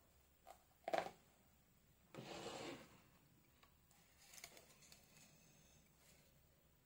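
Flower stems being handled and pushed into a vase: a brief tap about a second in, then a rustle of stems and leaves lasting under a second, with faint rustling later.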